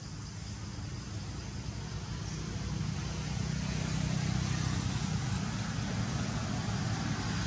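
Low, steady rumble of a motor vehicle engine, growing louder from about three seconds in.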